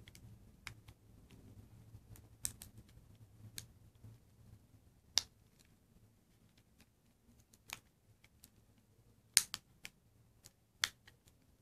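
Plastic case of a Suzuki car remote key fob clicking as its two halves are squeezed and snapped back together: about nine sharp, separate clicks at irregular intervals, the loudest in a quick cluster near the end.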